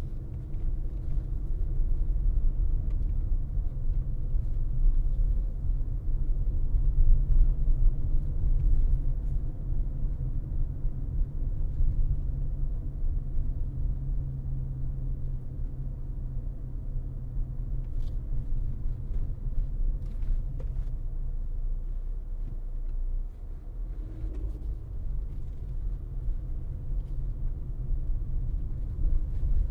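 A car driving: a steady, low rumble of road and engine noise, with a few faint clicks.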